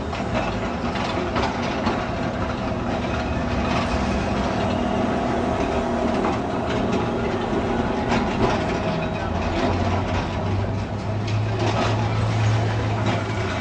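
Electric tram running on its rails: a steady rumble with a low motor hum and scattered short clicks from the track. The low hum grows stronger about ten seconds in.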